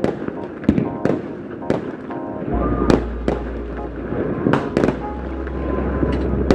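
Fireworks and firecrackers going off: about a dozen sharp bangs and pops at irregular intervals, some in quick pairs, over a continuous crackling din, with music playing underneath.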